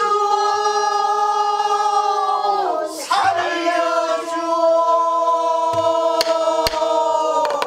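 Pansori singing in two long held notes, the first sliding down about three seconds in. A buk barrel drum is struck with a stick several times in the second half.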